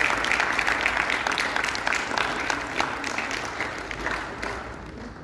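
Audience applauding in a hall, a dense patter of many hands clapping that dies away near the end.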